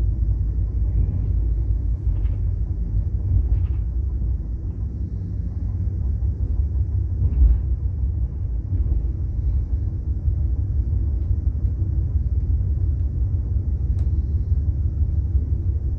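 Steady low rumble of a moving passenger train heard from inside the carriage, with one brief sharp click near the end.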